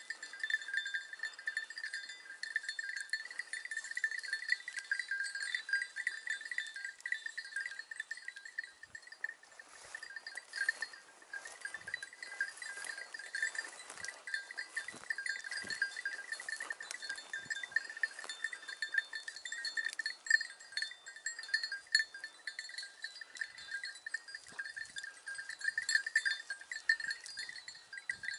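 A bell on a hunting hound's collar jingling quickly and without a break as the dog works through the brush, with some rustling of vegetation in the middle.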